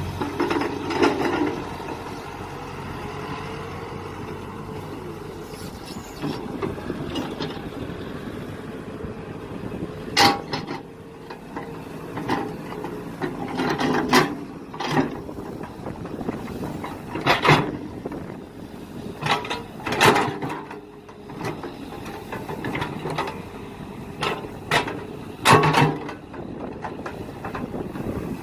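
Mini excavator at work: its engine runs steadily, most strongly for the first few seconds, under a series of sharp knocks and clanks from the digging.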